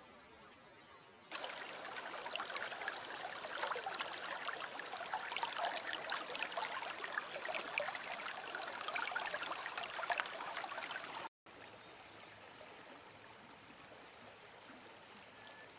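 Shallow river water babbling and splashing over a rock close to the microphone, a dense crackle of small splashes, starting just over a second in. After about ten seconds it cuts off abruptly and gives way to a much softer, steady river ambience.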